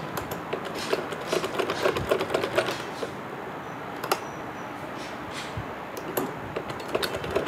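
Old mechanical household sewing machine stitching in short runs, its needle and feed clicking rapidly, with a pause of a few seconds in the middle.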